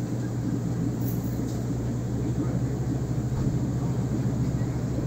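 Steady low electrical hum over an even rushing noise, the running sound of aquarium pumps and filters.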